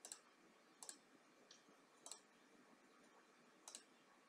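Four faint computer mouse clicks, spaced irregularly about a second apart.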